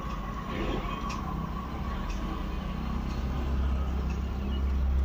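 Steady low background rumble, with a few faint ticks and rustles over it.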